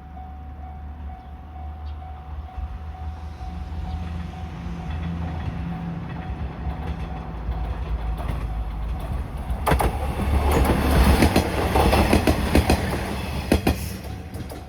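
A JR Koumi Line train approaching a level crossing, its engine rumble growing louder, then passing close by from about ten seconds in with a rapid clatter of wheels over the rails for about four seconds before fading.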